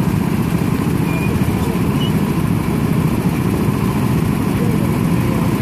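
Small petrol go-kart engines running steadily, a dense rough low rumble with no revving.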